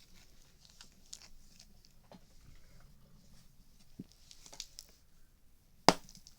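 Scattered faint clicks and crackles, then one loud, sharp pop near the end.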